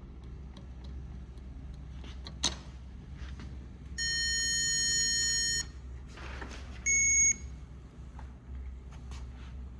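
Small speaker driven by an Arduino beeping twice at random intervals: a steady buzzy tone of about a second and a half, then a shorter, higher-pitched beep, the second one the louder. A sharp click comes before the first beep.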